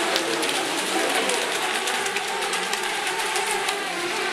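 Several small electric ECO Mini class RC racing boats running at speed together, a steady mix of motor whine and water noise.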